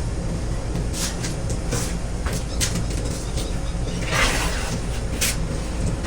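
Light knocks and clicks, with one longer scrape about four seconds in, as parts of a raku kiln are handled and set in place, over a steady low rumble.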